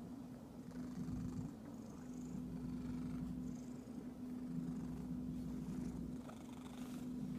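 Domestic cat purring steadily while being scratched, the purr pausing briefly and starting again every second or two as it breathes in and out.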